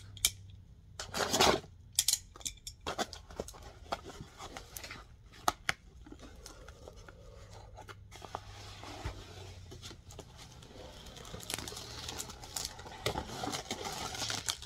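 Cardboard shipping box being cut and torn open by hand: scattered sharp clicks and scrapes, a louder rip about a second and a half in, then a steadier rustle and crinkle of the box and packaging in the second half.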